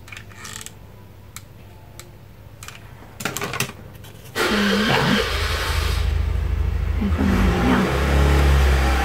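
Light clicks and rustles of paper being handled. About four seconds in, a loud motor-vehicle engine noise with a deep rumble starts suddenly and keeps going.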